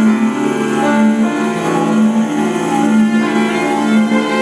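Instrumental band music led by a bowed cello, over a low note repeated in a steady pulse.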